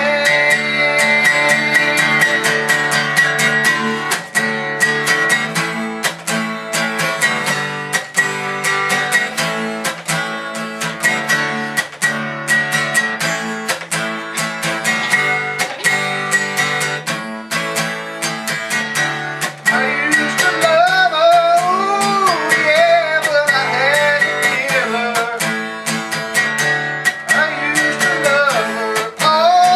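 Acoustic guitar strummed in a steady rhythm, with a voice singing over it from about two-thirds of the way through.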